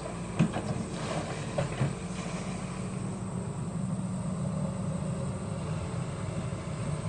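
SANY SY75 long-arm excavator's diesel engine running steadily, with a few sharp knocks in the first two seconds.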